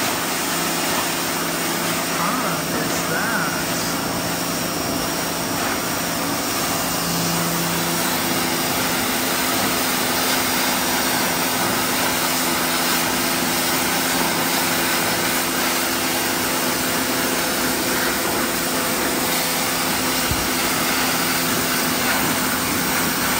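Pressure washer running steadily, its jet of water spraying onto a mud-covered stone floor, with a constant motor hum under the hiss of the spray.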